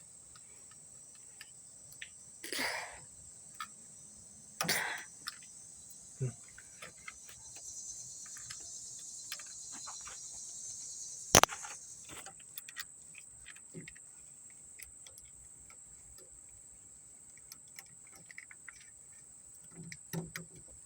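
Crickets chirping steadily in the background, with scattered small clicks and knocks of hands working the trunk latch's plastic connector plug, and one sharp loud click about eleven seconds in.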